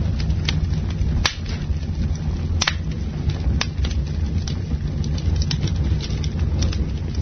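Campfire burning: wood crackling with irregular sharp pops, a few louder than the rest, over a steady low rumble.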